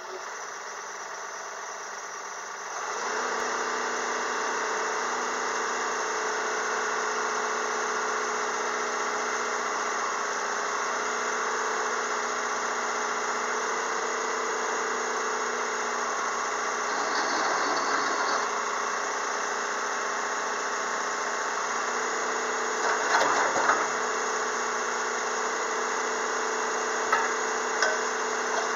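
Komatsu PC200-6 crawler excavator's diesel engine running steadily, getting louder about three seconds in as the boom and arm are worked. A few short knocks come in the last third.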